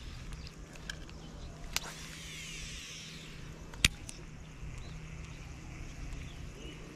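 Baitcasting reel retrieving line: a faint whir about two seconds in, with two sharp clicks, the louder one near four seconds in, over a steady low hum.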